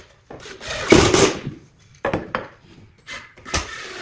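Handling of a wooden beehive box and a metal speed square: irregular scrapes and knocks of metal and wood rubbing together, the loudest a rub about a second in.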